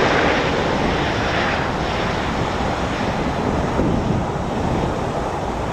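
Jet engine noise from a Boeing 737-800's CFM56 engines after landing: a steady, noisy roar that slowly fades as the airliner rolls away, with wind on the microphone.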